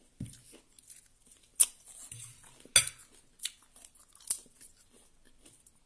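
Metal cutlery clinking and scraping against a ceramic bowl of fried rice, with about four sharp clinks, the loudest two about a second apart near the middle.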